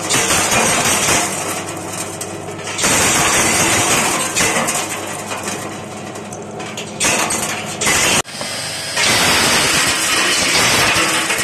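Candlenut shell-cracking machine running, with a dense clatter of cracked shells and kernels pouring out of its outlet chute. The sound breaks off sharply for an instant about eight seconds in.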